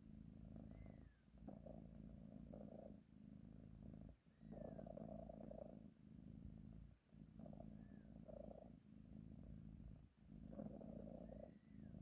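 A sleeping cat purring in long pulsing stretches, each broken by a brief pause as it changes breath. A faint short high squeak comes about four times.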